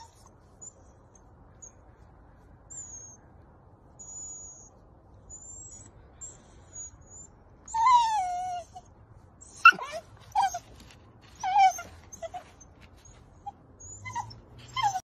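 Miniature dachshund whining: one long falling whine a little past halfway, then a string of short whines over the last few seconds.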